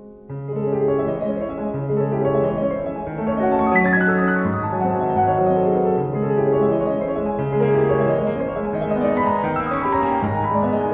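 Background piano music, with a new passage of held notes starting just after the beginning.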